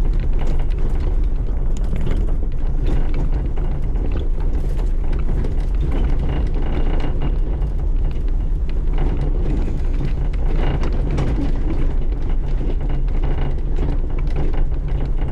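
Off-road vehicle engine running steadily while driving over a rough trail, with body rattles and knocks from the bumps.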